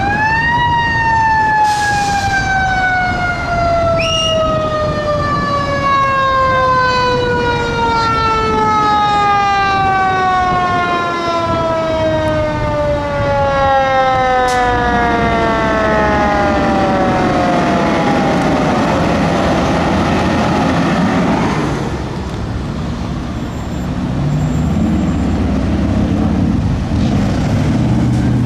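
Fire engine's mechanical siren winding up, then slowly winding down, its pitch falling steadily for about eighteen seconds until it dies away. Two short sharp sounds cut in about two and four seconds in. A heavy engine rumbles through the last few seconds.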